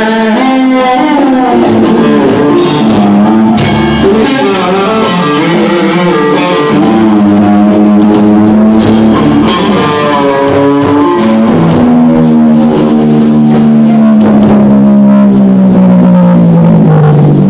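Live rock band: a distorted electric guitar plays a lead line of sustained, bending notes and quick runs over drums and bass. Near the end the guitar holds one long note that slides slowly down in pitch.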